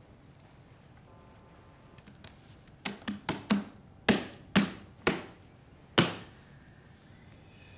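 Hands patting jigsaw puzzle pieces flat on a table: a run of about eight sharp taps starting about three seconds in, the last four loudest and about half a second apart.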